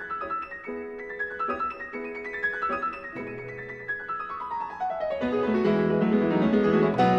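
Background piano music: a quick run of notes falling in pitch, then about five seconds in the playing grows louder into fuller chords.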